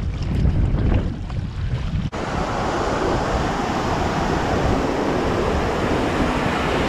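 Wind buffeting the microphone with light water splashing. About two seconds in it cuts suddenly to the steady rushing hiss of a breaking wave's whitewater.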